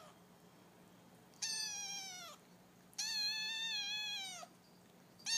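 Kitten mewing: two high-pitched mews, the second longer at about a second and a half, each dropping in pitch at its end, and a third mew starting near the end.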